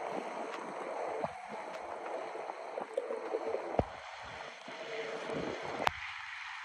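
Steady rushing outdoor background noise with a few sharp clicks, the loudest about six seconds in.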